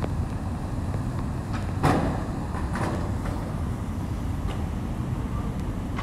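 Steady low background rumble, with a short knock about two seconds in and a fainter one a second later.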